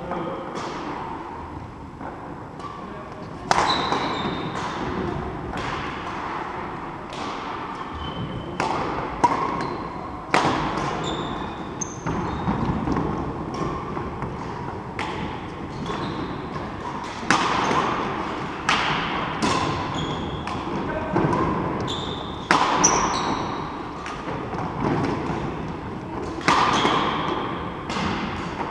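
Badminton rackets striking a shuttlecock during a doubles rally: a string of sharp cracks, roughly one a second, ringing in the hall after each hit. Short squeaks of shoes on the wooden court come between the hits.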